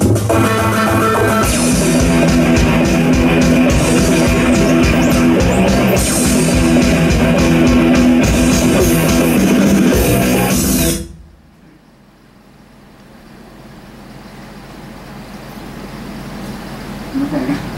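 Live rock band playing loud, with electric guitar and drum kit, stopping abruptly about eleven seconds in. After the stop a much quieter, even noise slowly grows louder.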